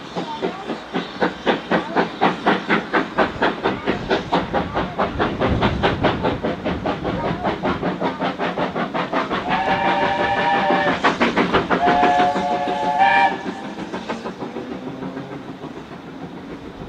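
Steam locomotive working a train, its exhaust beating in a rapid, regular rhythm, then sounding its chime whistle twice near the middle, several notes at once, the second blast rising at its end. The beats fade as the train draws away.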